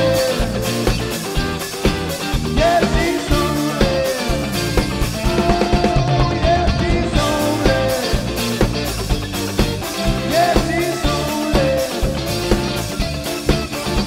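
A rock band playing a song with a sung lead vocal over electric guitar and drums.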